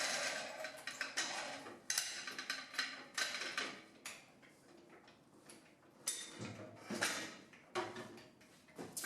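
Irregular knocks, clicks and scrapes of hands-on work on a car chassis and body. A stretch of scraping comes first, then separate sharp knocks, with a quieter lull in the middle.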